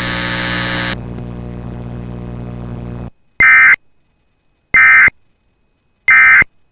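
A steady buzzing hum that drops in level about a second in and cuts off about three seconds in. Then three short, loud bursts of EAS digital data tones, the warbling two-tone burst around 2 kHz, come about 1.3 seconds apart: the end-of-message code that closes an Emergency Alert System alert.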